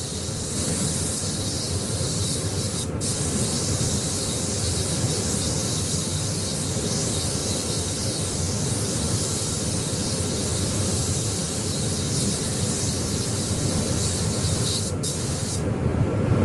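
Air spray gun hissing as it sprays paint onto car body panels, steady, with the trigger let off briefly about three seconds in and again near the end.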